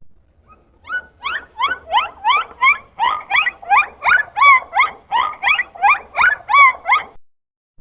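Dolphin giving a rapid run of short squeaky chirps, most sweeping up in pitch and a few curving down, about three a second. They begin about a second in and stop shortly before the end.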